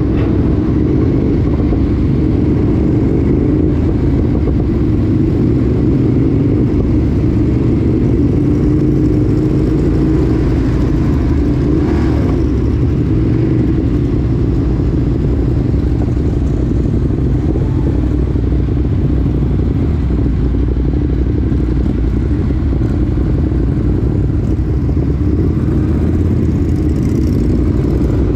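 Ducati Monster motorcycle's L-twin engine running steadily, a loud, low, even drone with no sharp revs.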